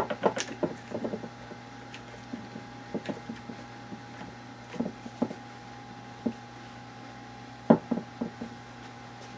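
Scattered wooden knocks and clicks as glued white oak blocks and clamps are handled and tightened, with a loud cluster of knocks near the end, over a steady electrical hum.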